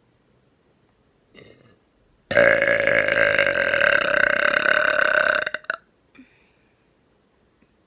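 A long, loud belch right up at the microphone, held at a steady pitch for about three and a half seconds, starting about two seconds in. A short, faint sound comes just before it.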